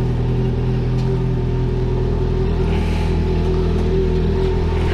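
Motorcycle engine idling steadily at low revs.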